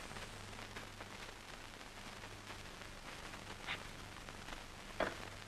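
Steady hiss and low hum of an old film soundtrack between lines of dialogue, with a couple of faint ticks near the end.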